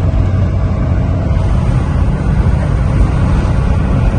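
Scania truck's diesel engine and road noise heard from inside the cab while driving: a steady low drone.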